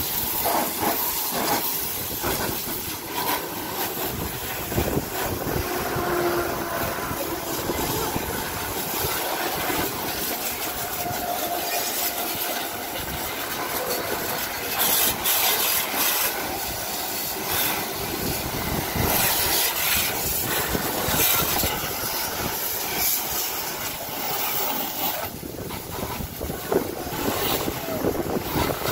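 Water jet from a hose spray wand hissing and splashing onto a car's bonnet and bodywork, steady with a few louder surges.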